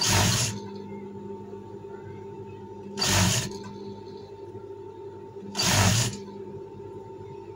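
Industrial sewing machine humming steadily while it stitches a braided cord trim onto fabric in short half-second spurts, three times, about every two and a half to three seconds.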